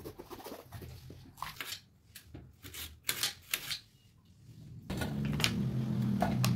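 A kitchen knife cuts through a green bell pepper in a run of crisp cuts. About five seconds in, a steady low hum starts, with a few light knife clicks as a button mushroom is sliced.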